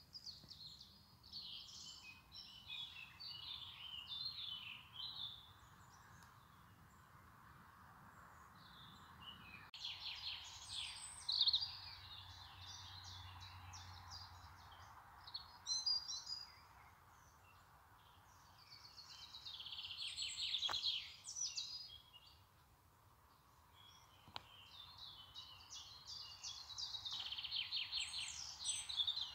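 Songbirds singing, with bursts of rapid chirps and trills broken by short lulls, over a faint steady hiss.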